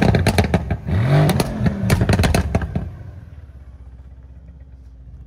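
Car engine revved up and down with a rapid crackle of pops on the overrun, then falling back to a low steady idle about three seconds in.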